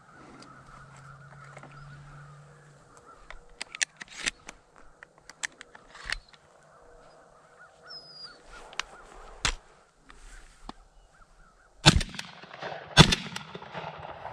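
Two shotgun shots a little over a second apart near the end, fired from a Benelli Super Black Eagle III semi-automatic shotgun at a passing dove, each with a short ringing echo. Before them, faint bird calls and scattered clicks and rustles.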